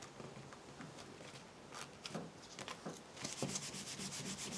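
Hand rubbing glued cardstock layers flat onto a paper explosion box, a quick even back-and-forth rubbing that starts about three seconds in, after a few faint paper rustles and taps.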